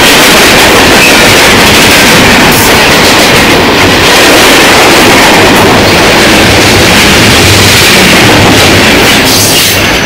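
Freight train cars rolling past at close range over a railway bridge: loud, steady noise of steel wheels on the rails, easing slightly near the end.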